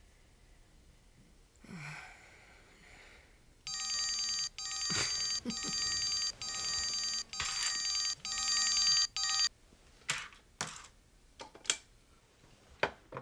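Telephone ringing with an electronic trilling ring, starting about four seconds in and lasting about six seconds. It is followed by a few sharp clicks and knocks.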